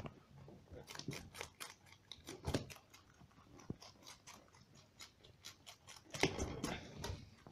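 A rabbit chewing and crunching a crisp Chinese cabbage stalk, a quick run of small crisp bites that grows louder about six seconds in.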